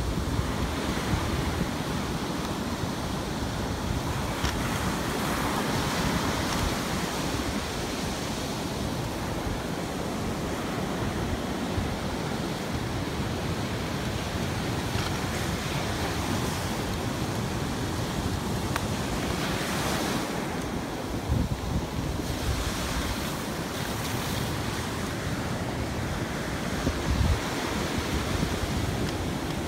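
Steady wind rushing over the microphone mixed with ocean surf breaking, with a couple of brief louder wind gusts in the second half.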